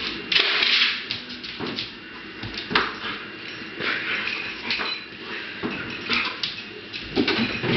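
A dog tugging at a rope tied to a refrigerator door handle, making irregular knocks and rattles as the fridge door is yanked and bumps back against its seal.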